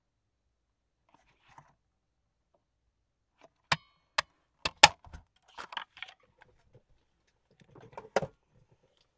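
A large handheld round paper punch cutting a thumb notch in kraft file-folder cardstock: a few sharp clicks and snaps about four seconds in as it closes through the card. Paper rustling follows, then another sharp clack near the end.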